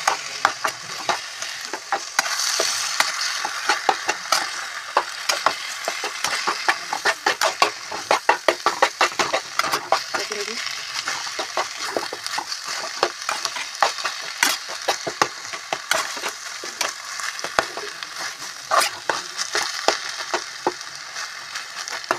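A spatula scraping and tapping around a kadhai in rapid, irregular strokes as kachnar (bauhinia bud) sabzi is stirred, with a steady sizzle from the mixture frying as the added buttermilk cooks off.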